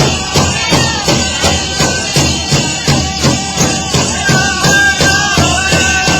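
Powwow drum group: a large shared drum struck in a steady beat of about three strokes a second, with high-pitched singing entering about four seconds in.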